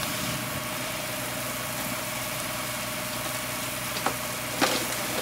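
A fire engine's pump motor running steadily with a constant whine over a steady hiss, while a hose is in use. Two short sharp snaps come a little after four seconds in.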